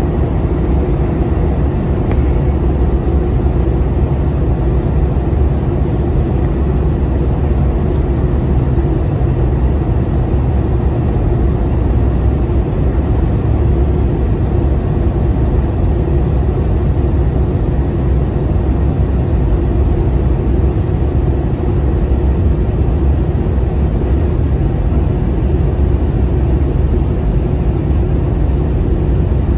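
Steady, loud cabin rumble of an Airbus A320 airliner on approach, with engine and rushing airflow heard from inside the cabin. The sound holds even and unchanging throughout.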